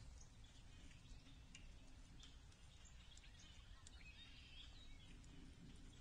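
Faint outdoor ambience with a low background rumble and scattered distant bird chirps and calls.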